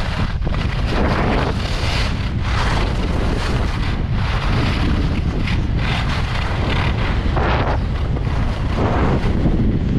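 Wind rushing over the camera microphone while skiing downhill, a loud, steady low buffeting. Over it, swells of scraping hiss every second or two as the skis carve turns on groomed snow.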